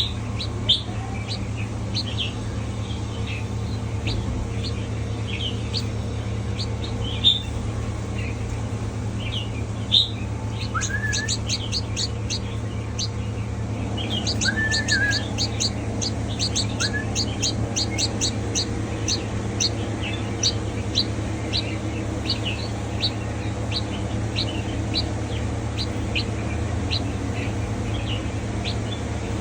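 Red-whiskered bulbul calling: short high chirps, thickening into a fast run of them through the middle, with a few lower whistled glides. A steady low hum runs underneath.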